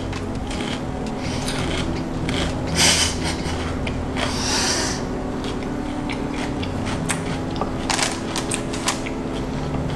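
Close-up crunching and chewing of a crisp, batter-fried squash blossom, with many small irregular crackles. Louder crunches come about three seconds in, again around four to five seconds, and near eight seconds.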